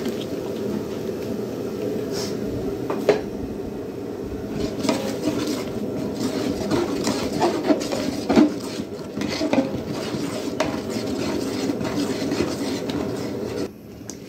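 A spatula scraping and knocking against a large metal cooking pot while thick tomato-onion masala is stirred, with scattered sharp clicks over a steady low rush. The sound drops quieter shortly before the end.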